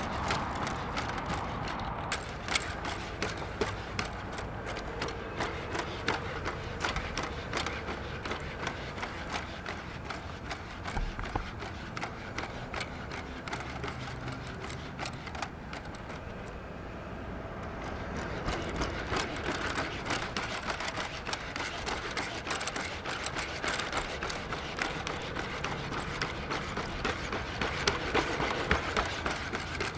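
Boston Dynamics Spot robot dog walking, its feet tapping the ground in a quick, irregular patter of light steps over a steady background hum.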